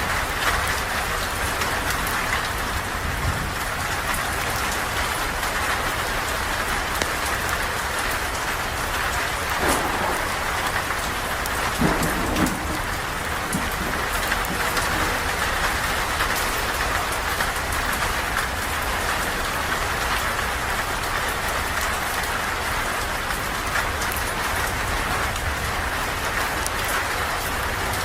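Steady rain falling on a surface, with a low rumble underneath and a few short louder knocks about ten and twelve seconds in.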